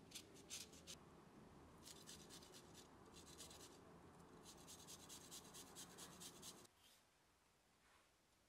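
Fine metal rasp grater scraping in short strokes, a few at a time near the start and then a fast run of strokes that stops about two-thirds of the way through.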